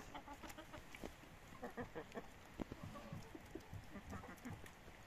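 A small flock of Italian-breed hens clucking quietly close by, with many short, scattered calls.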